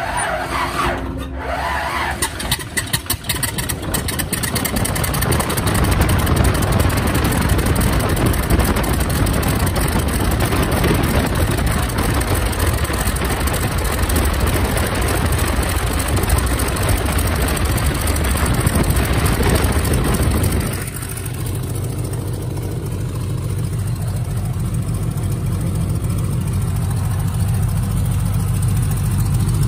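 Vintage biplane's piston engine firing unevenly as it starts, then running loud and steady. About twenty seconds in, the power drops back to a lower, even idle.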